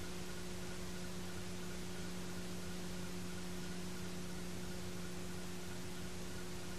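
Steady hiss with a low, even hum and nothing else: the noise floor of an old videotape recording.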